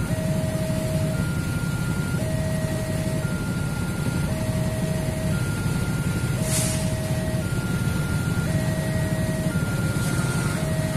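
Railway level-crossing warning alarm sounding while the crossing is closed: an electronic two-tone signal that alternates a low tone and a higher tone, each about a second long. A steady low rumble runs underneath.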